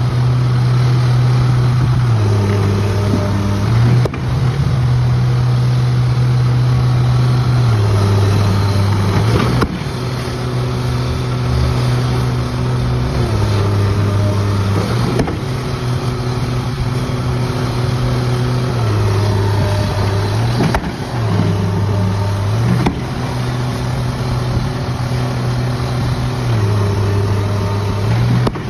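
Truck-mounted guillotine pavement breaker at work: the truck's diesel engine runs loudly, its note dropping for a second or two and rising again about every five or six seconds. Several times the heavy drop weight strikes the concrete pavement with a sharp thud, breaking it.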